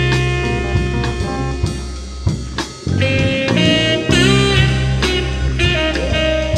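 Lo-fi background music with a drum beat and melodic instruments.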